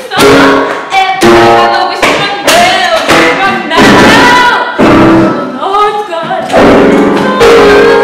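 A girl singing loudly to her own grand piano playing, with chords struck hard again and again.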